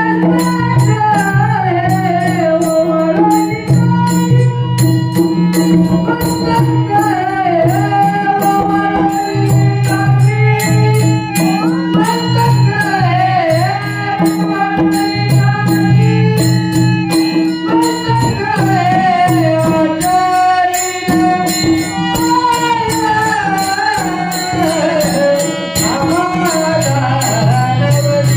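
Marathi devotional folk singing: a male voice sings an ornamented, gliding melody over a steady harmonium drone and chords, with percussion clicking in a regular beat.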